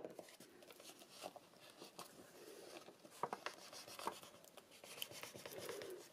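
Bone folder rubbing and scratching along creases in scored patterned paper, pressing the folds of the box's small squares into shape, with soft paper rustles between strokes. It opens with a sharp click.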